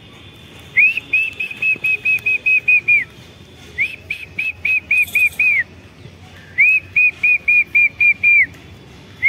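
Three runs of high whistled notes, repeated quickly at about four a second, each run lasting about two seconds with short pauses between.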